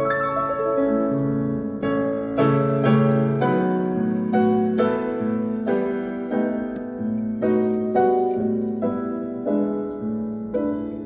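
Background piano music, single notes struck about twice a second over a held low bass note.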